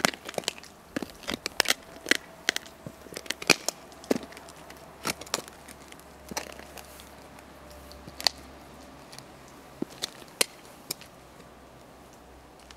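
Buffalo boots stepping and grinding on loose gravel while crushing a pear underfoot: a run of sharp crunches and cracks, thick in the first half and thinning out after about six seconds.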